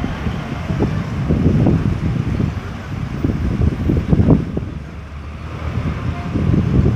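Road traffic going round a busy roundabout: vehicle engines and tyres swelling and fading as vehicles pass, with low rumbling gusts of wind on the microphone.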